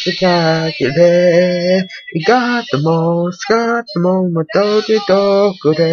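A male vocalist singing with band backing: the anime's closing theme song playing.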